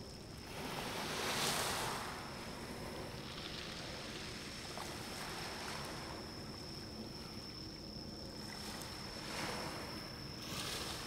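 Water washing, with swells of surf about a second in and twice near the end, over a faint steady low hum and a thin, steady high-pitched tone.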